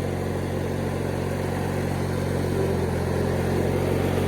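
Engine of a 1997 MTD Yard Machines riding lawnmower running steadily with an even low hum, getting slightly louder in the last second or so.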